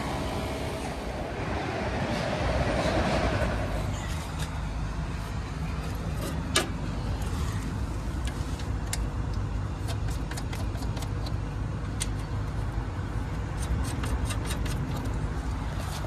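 Ruud/Rheem split-system condensing unit running with a steady low hum from its compressor and condenser fan. Over it come light clicks and taps from hands working the wiring inside the unit, one sharper click about six and a half seconds in.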